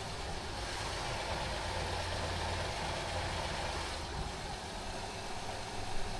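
Honda minivan engine idling steadily, with a high mileage of 260,000. It is freshly treated with oil stabilizer, which the owner says has made it run smoother and stopped it burning oil.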